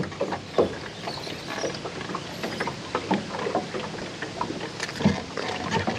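Spinning fishing reel being cranked in after a missed bite, with irregular small mechanical clicks and light knocks of the gear.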